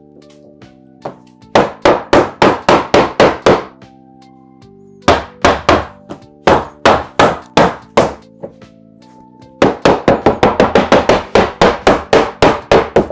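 Small mallet tapping a thin wooden panel down into a cabinet-door frame to seat it: runs of sharp knocks, several a second, slower in the middle and quickening into a fast flurry near the end.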